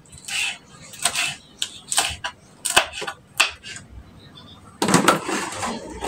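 Irregular sharp clicks and knocks of objects being handled, with a longer, denser clatter about five seconds in.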